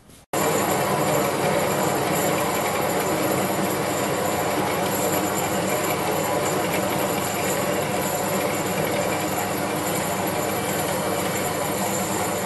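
Small metal-cutting bandsaw, set in its vertical position, running steadily with its blade cutting through a cast aluminium alloy wheel rim. It starts abruptly just after the beginning.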